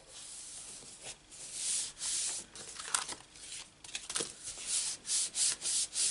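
Hands rubbing and pressing a cardstock greeting card flat, pressing a freshly glued layer down: a series of short, dry swishes of skin and paper sliding over a craft mat.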